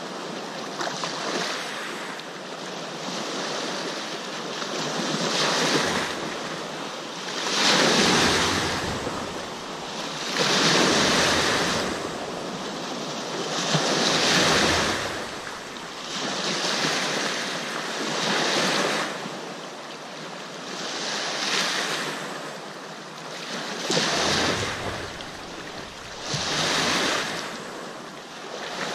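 Small lake waves breaking and washing onto a sandy shore, surging about every two to three seconds.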